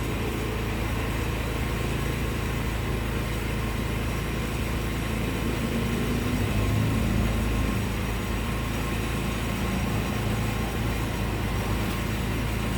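Honda Vario scooter's engine idling steadily.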